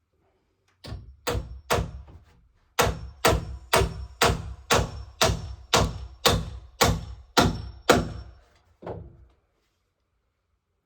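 Repeated hammer blows with a slight metallic ring. Three come first, then a steady run of about eleven at roughly two a second, and a last lighter tap near the end.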